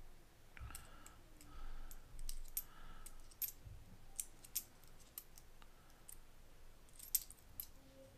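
Wheat pennies clicking against one another as they are handled one by one, a scattered run of faint, light clicks.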